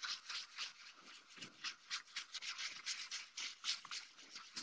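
Wet 400-grit sandpaper rubbed in small circles over the primer coat of a 3D-printed helmet: a quick, even scratching rhythm of about five strokes a second.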